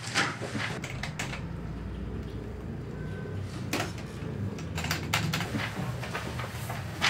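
Irregular clacking of keys being typed on, over a steady low hum.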